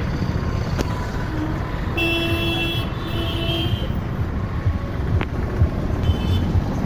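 Street traffic with a steady low rumble and a vehicle horn honking twice in a row about two seconds in.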